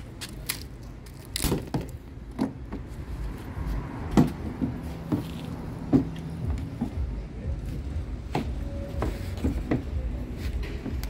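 Kayak rudder hardware being handled by hand: a wing screw is undone and the rudder fitted, giving scattered clicks and knocks of plastic and metal parts, the sharpest about four and six seconds in. A low rumble grows beneath them from about four seconds in.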